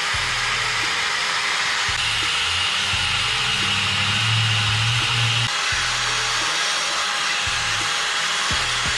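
DeWalt power tool spinning a 3M Roloc 120-grit abrasive disc against an aluminium engine front cover, scrubbing its sealing surface clean. A steady whirring hiss that grows louder and higher from about two seconds in and drops back after about five and a half.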